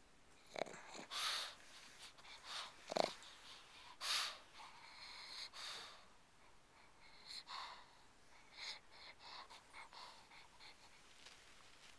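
Sleeping pug breathing noisily through its nose, with irregular wheezy snorts, the loudest around three to four seconds in.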